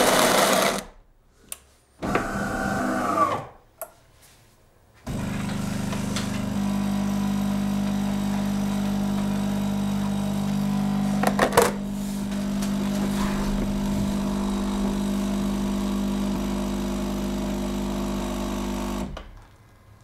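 Delonghi Dinamica Plus superautomatic coffee machine brewing a coffee crema. The grinder stops within the first second, followed by brief whirring with a falling pitch and a click. From about five seconds in, the pump runs with a steady buzzing hum while the coffee extracts, with a short louder burst midway, and it stops about a second before the end.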